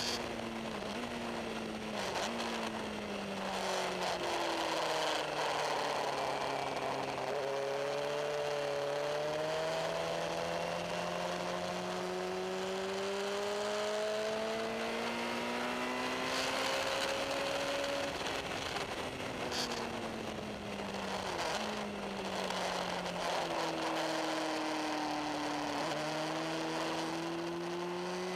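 Suzuki GSX-R750 K5 sport bike's inline-four engine, heard from the onboard camera on the bike, at speed on a race track with wind rushing over the microphone. The engine note falls in steps over the first few seconds, climbs slowly for about ten seconds, falls again, and climbs again near the end as the bike slows for corners and accelerates out of them.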